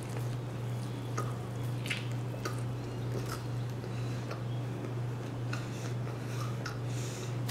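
Close-miked chewing of a Popeyes spicy fried chicken sandwich, heard as scattered short mouth clicks and smacks over a steady low hum.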